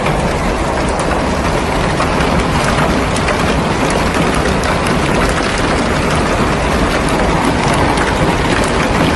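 Heavy hailstorm: hailstones and rain pelting down in a loud, steady clatter of countless small hits.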